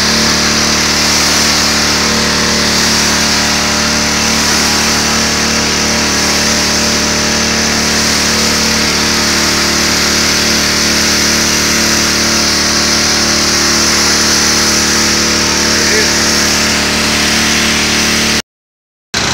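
Pressure washer running steadily, its engine holding a constant drone under the strong hiss of the water jet spraying the concrete. The sound cuts out abruptly for under a second near the end.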